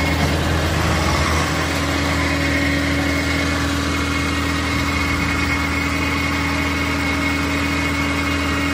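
Dump truck engine running at a steady speed, driving the hydraulic hoist that raises the loaded tipper bed. A steady whine sits over the engine hum.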